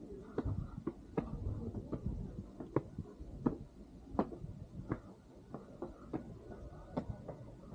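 Footsteps at an even walking pace, about one step every three quarters of a second, over a low background rumble.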